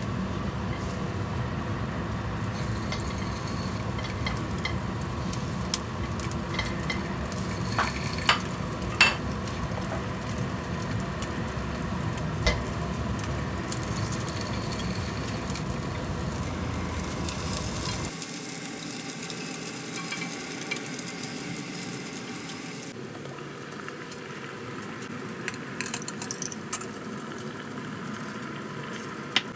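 Egg-dipped salmon pieces sizzling as they fry in oil in a wok, with sharp clicks of tongs against the pan as the pieces are turned. The sizzle grows quieter a little past halfway, and a few clinks come near the end.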